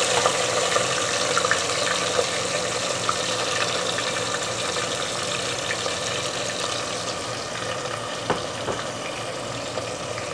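Freshly chopped red onions sizzling in hot oil with whole spices in a steel pot: a steady frying hiss that grows gradually quieter. There are a couple of light clicks about eight seconds in.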